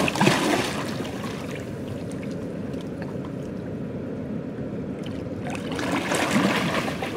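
Water splashing as a large wels catfish is released back into the river: a splash at the start, then a longer bout of splashing and churning about six seconds in as the fish swims off, over a steady low rush.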